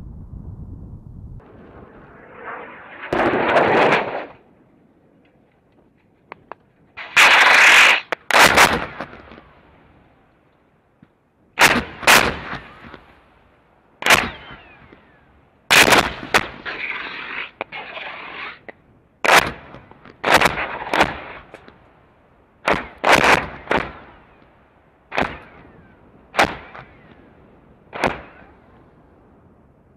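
CBU-105 cluster bomb submunitions detonating over and among target tanks: about a dozen sharp explosive cracks at uneven intervals, starting about three seconds in, several of them trailing off in a second or two of rushing noise.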